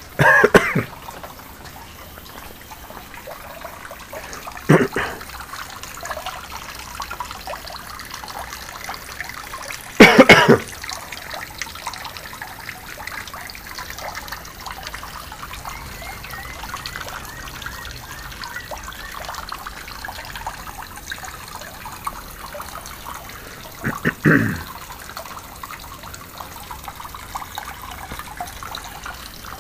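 Steady trickle of filtered water from a small pond pump falling back into a garden pond. Four loud brief noises break in, the loudest about ten seconds in.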